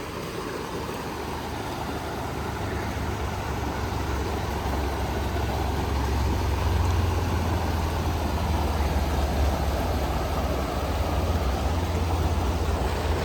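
Steady rushing of a creek's flowing water, with a deep rumble under it that grows louder over the first half.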